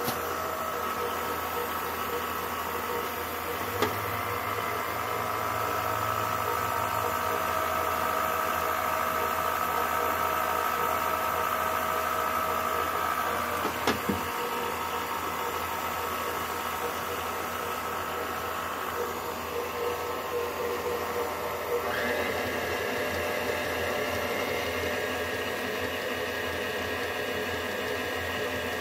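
KitchenAid stand mixer motor running steadily with a whine made of several steady tones. There is a sharp click about 14 seconds in, and the whine shifts to a higher tone a little past 20 seconds.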